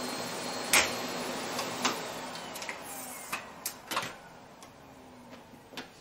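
Vacuum cleaner motor winding down: the steady suction noise fades over a few seconds while a faint whine falls in pitch. Sharp clicks come through it, about seven, several of them in a cluster near the middle.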